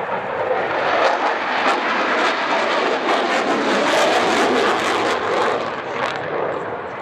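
Jet noise from a MiG-29 flying its display: its two Klimov RD-33 turbofans give a loud, dense rushing sound with a crackly edge, easing slightly near the end.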